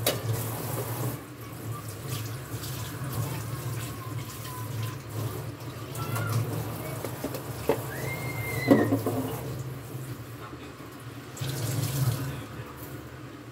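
Kitchen tap running into a sink as hands rinse things under it. The splashing is louder about a second in and again near the end.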